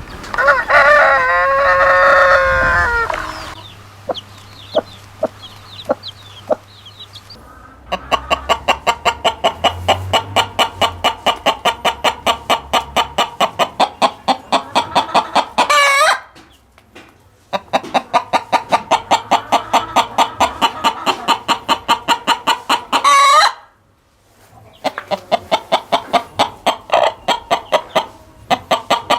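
Chickens calling. A rooster crows once about half a second in, followed by a few scattered clucks. Then come three long runs of rapid, evenly spaced clucks, each ending in a rising squawk, like a hen's cackle.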